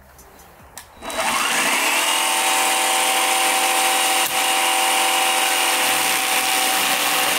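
Einhell electric chainsaw switched on about a second in, its motor and chain spinning up with a rising whine, then running steadily at full speed while held clear of the work.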